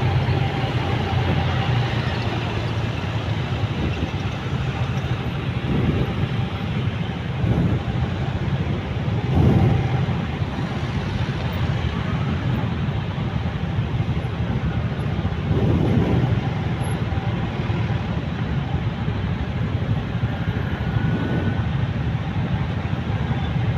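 City road traffic heard from a motorcycle in the thick of it: a steady low engine hum and road noise from the surrounding motorcycles and cars. Several louder swells come and go as vehicles pass close by or pull away.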